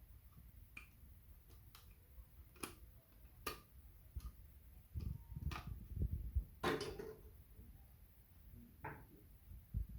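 Irregular sharp clicks and light knocks of hands handling the metal and plastic parts of a Dell OptiPlex 9020 small-form-factor desktop's 2.5-inch drive bay, with a cluster of duller knocks about five to seven seconds in.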